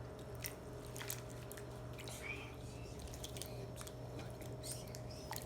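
Faint, scattered small ticks and wet sounds of sea salt sprinkled into a bowl of sweet potato wedges soaking in cold water, over a steady low hum.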